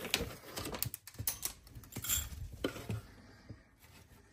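Crinkling and rustling of a bag of guinea pig food as a hand digs out pellets, with many small clicks, dying away in the last second or so.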